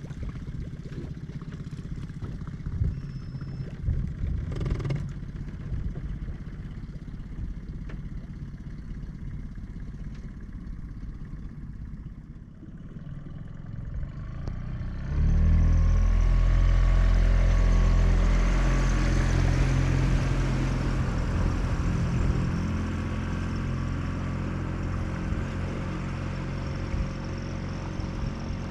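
Low rumble with a few knocks and clatters of gear in a small boat. About halfway through, the boat's outboard motor comes in loud and then runs steadily.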